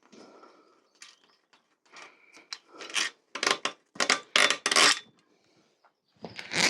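Small metal bicycle parts clinking, rattling and scraping as they are handled. A run of louder clinks comes about three to five seconds in.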